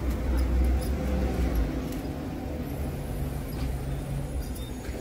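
City bus engine running as the bus drives along the street, loudest in the first second and a half, over general street traffic noise.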